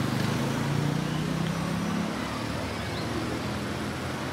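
Road traffic: a motor vehicle's engine running close by with a steady low tone that fades about two seconds in, over a constant traffic hum.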